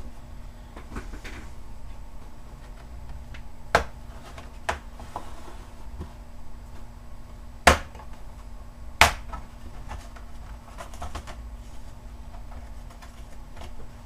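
Retaining clips of a Dell Inspiron 7568 laptop's bottom cover snapping loose as the cover is pried off: about four sharp snaps, the loudest two just past halfway and a little over a second apart, with fainter ticks between.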